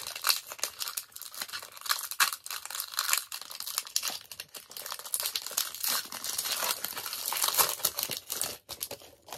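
Foil wrapper of a Pokémon TCG Brilliant Stars booster pack crinkling and tearing as it is peeled open by hand, a dense, continuous crackle that stops shortly before the end.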